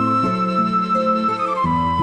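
Background music: a gentle flute-like melody holding a high note that slides down near the end, over soft sustained chords.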